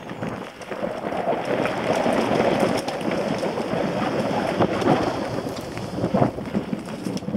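Enduro mountain bike rolling fast down a dry dirt trail: tyres over dirt and dry leaf litter and the bike rattling over the bumps, heard as a dense rattling noise full of small knocks that grows louder about a second in.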